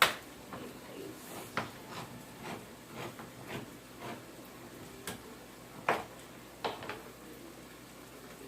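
Kitchen handling noises: scattered sharp clicks and knocks of things being picked up and set down, the loudest right at the start and another about six seconds in.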